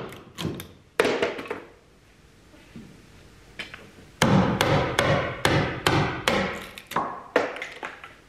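A wooden mallet striking a chisel into the timber of a wooden boat's stern post, chopping out wood. A few blows, a pause of about three seconds with a couple of light taps, then a steady run of blows about three a second.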